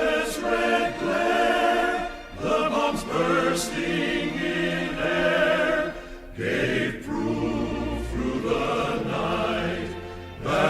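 Choral music: voices singing held chords in phrases, with brief breaks between phrases about two and six seconds in.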